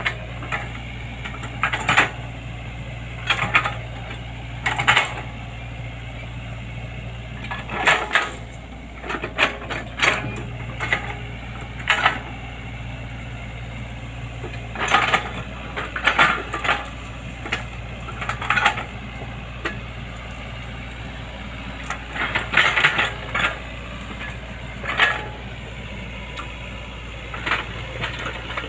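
Excavator engine running steadily at a low hum, with irregular sharp knocks and clatter from the digging work over it.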